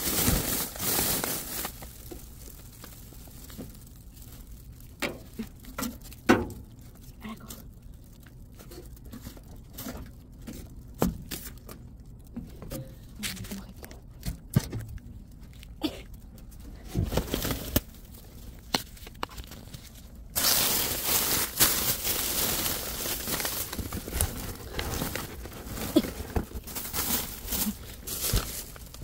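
Plastic garbage bags crinkling and rustling as they are pulled and shifted in a dumpster, with scattered light knocks and clicks. About two-thirds of the way through, a steady hiss suddenly comes in under the handling.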